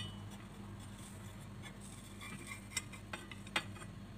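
Metal spatula clinking and scraping against a frying pan as pancakes are turned: one sharp clink at the very start, then a few lighter clicks about three seconds in, over a faint steady hum.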